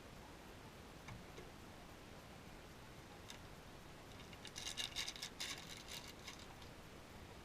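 A few faint isolated clicks, then a brief flurry of rapid small clicks and rustling about four and a half seconds in, from small objects being handled.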